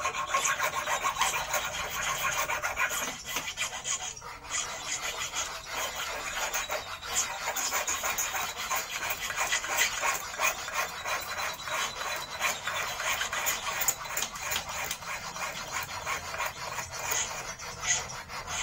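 A file rasping on a thin steel wire held against a wooden block, in quick, even back-and-forth strokes, as when a hook's point is filed by hand.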